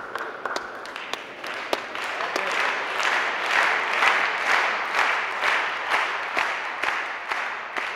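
Spectators applauding a point in a table tennis match: many hands clapping together, building about a second in and tapering off near the end, with single sharp claps standing out.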